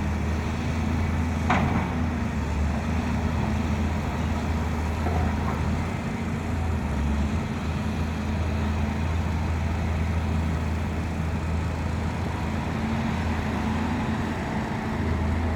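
Large excavator's engine running steadily with a low drone, with one sharp knock about a second and a half in.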